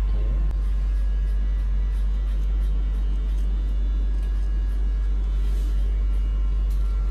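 A steady low rumble, unchanging in level, with faint music underneath.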